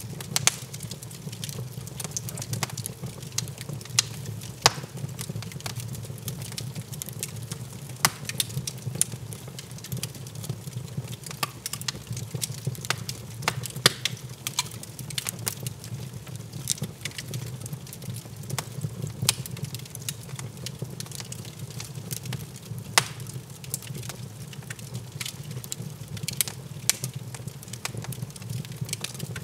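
Log fire crackling in a fireplace: irregular sharp pops and snaps over a steady low rumble.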